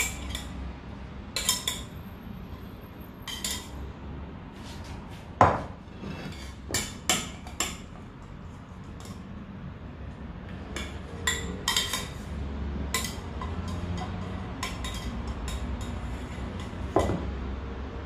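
Kitchen cookware and utensils knocking and clinking: a string of sharp clicks and knocks, the loudest about five and a half seconds in and another near the end, over a steady low hum.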